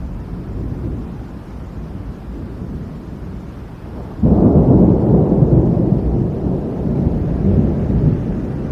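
Storm of strong wind and rain making a steady low rumble, with a sudden much louder rumbling surge about four seconds in that dies away slowly.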